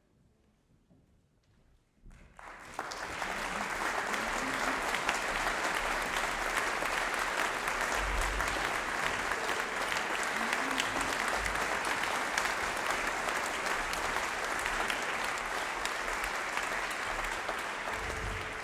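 Audience applauding. The applause starts about two seconds in, holds steady, and eases off near the end.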